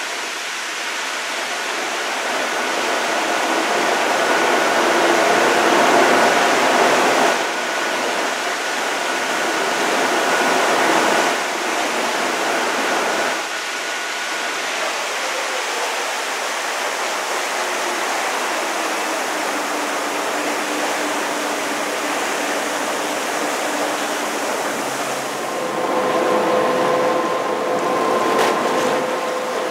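Steady rush of water and wind from a moving boat, with a faint steady engine hum underneath. A lower hum comes in near the end.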